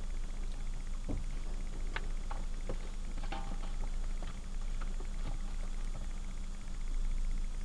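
Steady low hum inside a stopped car's cabin, with a few faint scattered clicks and ticks in the first half.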